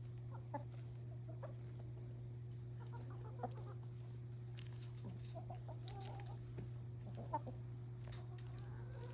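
Backyard hens clucking softly: short, scattered clucks, a few of them louder and sharper, over a steady low hum.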